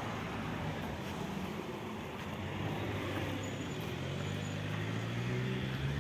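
Street traffic in a city: a steady hum of passing and idling cars, with one vehicle engine growing louder in the second half, its pitch rising slightly.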